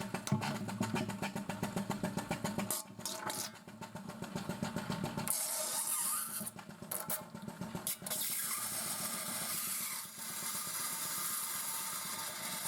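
Air-operated diaphragm pump running with a fast, rhythmic pulsing beat. About five seconds in, the sound turns into a steadier hiss.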